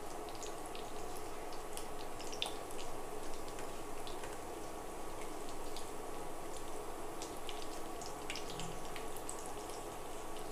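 Tempering spices (mustard seeds, cumin and split chickpeas) frying in hot oil: a faint sizzle with scattered small crackles and pops, over a steady hum.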